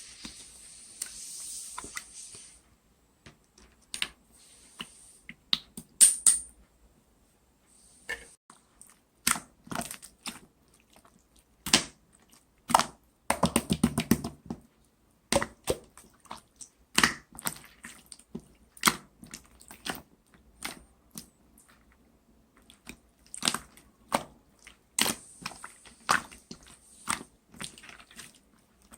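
Clear slime being squished and worked by hand, making sticky clicks and pops as trapped air bursts, with a quick run of pops about halfway through.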